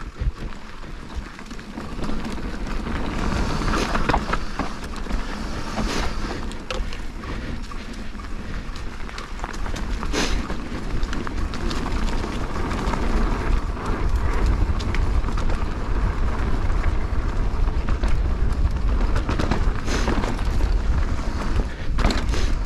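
Enduro mountain bike descending a rough trail: wind buffets the mounted action camera's microphone, with tyre roar and the rattle of the bike, and a few sharp knocks from impacts with rocks and roots.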